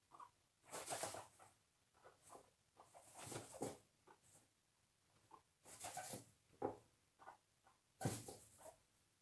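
A Teddy guinea pig popcorning on a fleece-covered wooden board. There are four bursts of scrabbling and fleece rustling with light knocks, about two seconds apart, and faint small ticks in between.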